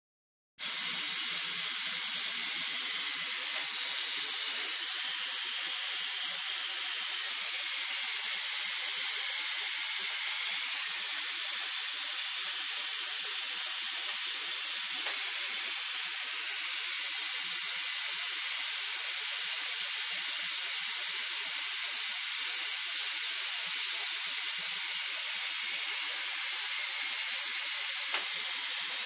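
Stainless steel pressure cooker on a gas hob, steam hissing steadily from its pressure valve as it runs under pressure.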